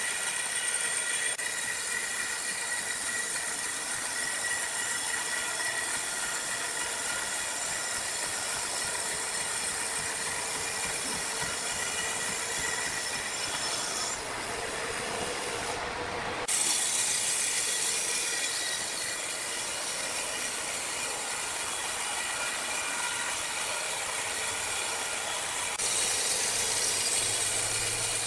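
Sawmill machinery running with a steady, high-pitched hiss and whine, the sound changing abruptly several times as the footage cuts between machines.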